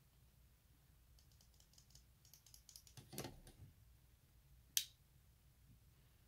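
Light, quick clicking and tapping from small hard objects being handled, with a soft knock about three seconds in and one sharp click near five seconds in.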